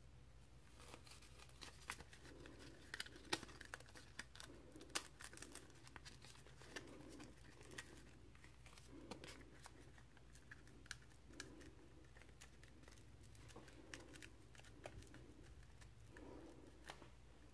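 Faint rubbing strokes, about one a second, with scattered small clicks and scratches, as a turkey feather quill is hand-sanded against a flat abrasive block.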